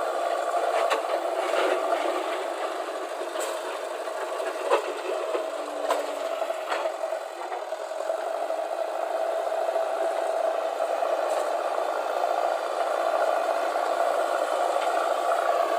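Diesel engine of heavy earthmoving machinery running steadily, with rattling and a handful of sharp knocks and clanks in the first half.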